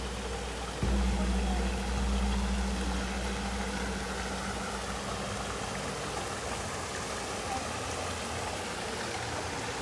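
A vehicle engine close by, a low steady hum that starts abruptly about a second in and fades away over the next five seconds, over a steady rushing background of traffic-like noise.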